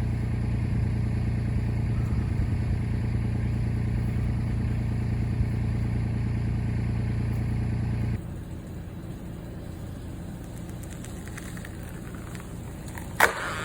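Kubota L2501 tractor's three-cylinder diesel engine running steadily under the backhoe work, dropping suddenly to a lower level about eight seconds in. A single sharp crack sounds near the end.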